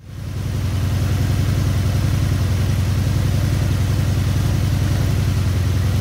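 Honda VF750 Magna's V4 engine idling steadily, with zero change as a left-bank carburetor's mixture screw is turned all the way in. The lack of response is the sign of a clogged idle circuit in that carb.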